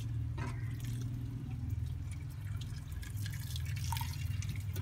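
Hot water poured from a kettle onto rice in a large steel pot, with a steady low hum underneath.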